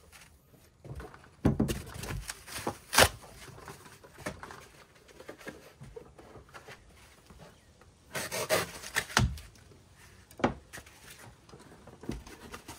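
White foam packing pieces being handled and pushed into place around a battery in a metal compartment. They rub and scrape and knock now and then against the floor and walls, with a sharp knock about 3 s in and a longer stretch of rubbing near 8 to 9 s.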